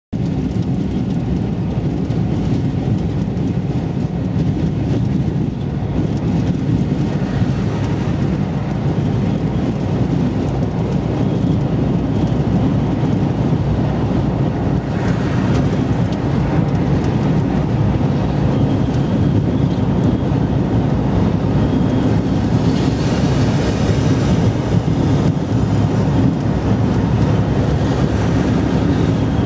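Steady low road and engine rumble of a vehicle cruising at motorway speed, heard from on board, with tyre and wind hiss swelling briefly about halfway through and again later while it runs alongside a lorry.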